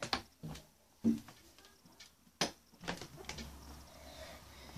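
A few separate knocks and clicks, spaced irregularly about half a second to a second and a half apart, with a faint low hum from about halfway.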